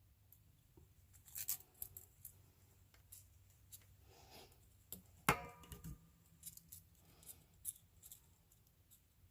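Small clicks, snips and handling noises of hand tools at a workbench, scattered and faint, with one sharp metallic knock that rings briefly about five seconds in.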